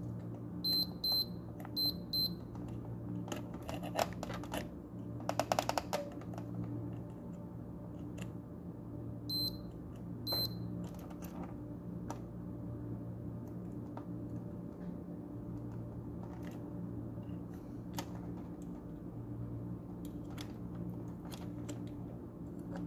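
Fluke digital multimeter in diode-test mode giving short high beeps as its probes touch components on the fan's circuit board: two quick pairs in the first couple of seconds and two more around nine to ten seconds in. A burst of small plastic clicks from the probes being handled comes around five to six seconds in, over a steady low hum.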